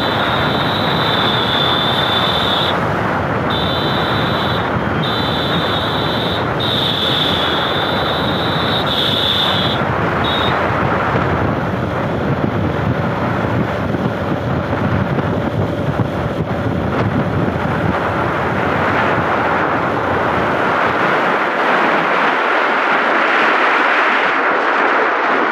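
Wind buffeting the microphone with road noise from a moving vehicle on an open road. A steady high-pitched tone runs through the first ten seconds, broken by a few short gaps. The low rumble of the wind eases about twenty seconds in.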